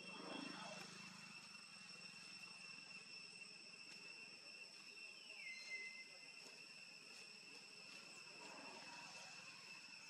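Quiet outdoor ambience with a steady, high-pitched insect drone from crickets or cicadas, holding a few fixed tones. A faint whistle slides downward about five seconds in.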